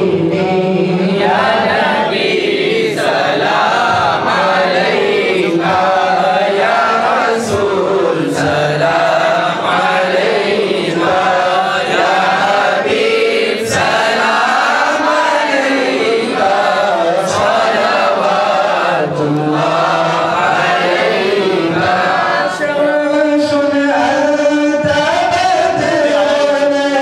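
A group of men chanting together in a devotional chant, continuous and loud, with the pitch held steadier near the end.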